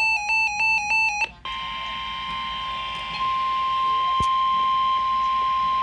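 An electronic alert alarm warbling rapidly between two tones cuts off about a second in. After a brief gap of radio hiss, a steady single-pitch weather radio warning tone begins, the NOAA Weather Radio 1050 Hz alert tone that precedes a severe thunderstorm warning broadcast, and holds over faint static.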